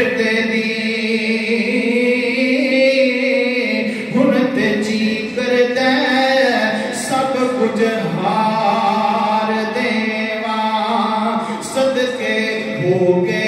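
A man singing Punjabi devotional verse (a kalam) unaccompanied, in long held notes with wavering pitch, and starting a new phrase about four seconds in.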